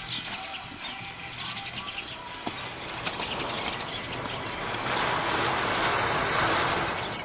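Outdoor ambience with birds chirping in the background. About halfway through, a louder even rushing noise swells up and dies away near the end.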